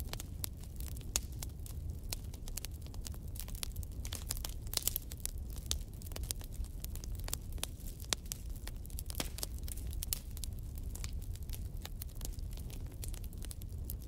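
Wood fire of burning sticks crackling, with frequent sharp pops and snaps over a steady low rumble.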